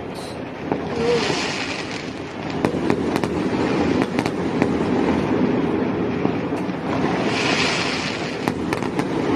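Fireworks going off: a dense crackle with sharp pops scattered through it, and two hissing swells, one about a second in and one near the end.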